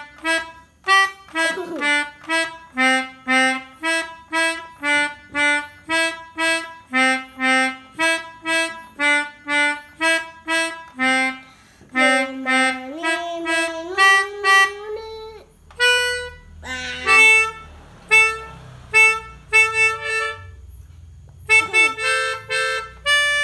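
Melodica (pianika) playing the telolet bus-horn tune in short, quickly repeated reedy notes, about two a second, breaking off briefly twice.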